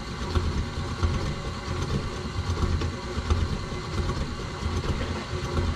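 KitchenAid stand mixer running steadily with a low hum, creaming butter-free wet ingredients and sugar in its bowl.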